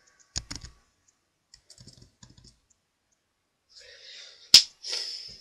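Computer keyboard keys clicking: a couple of sharp clicks, then a quick run of light taps as the typed characters '30a4' are deleted. Near the end there is a short rushing noise with one sharp, loud click in the middle, the loudest sound.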